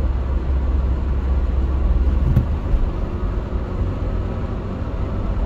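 Road noise heard inside a moving car: a steady low rumble of tyres and engine at cruising speed.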